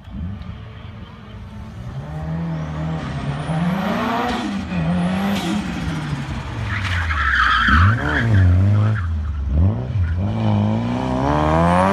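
Car engine driven hard through a cone slalom, its pitch rising and falling over and over as it accelerates and lifts off. About seven seconds in, the tyres squeal briefly as the car turns sharply.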